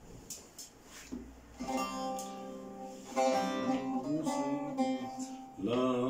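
Short-neck bağlama (kısa sap saz) with its strings plucked, playing a folk-song melody. A few light clicks come first; the notes start about two seconds in and get louder about halfway through.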